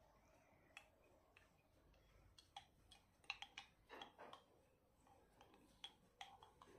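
Faint, irregular small clicks and taps of someone eating, such as a spoon or cutlery against a dish, thickest about three to four seconds in and again near the end.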